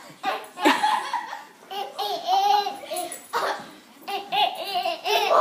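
Laughter in several separate bursts, indoors.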